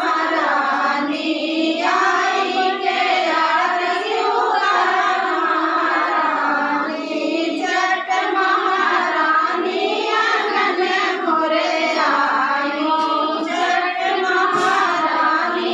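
A group of women singing a devotional song together, their high voices running on without a break.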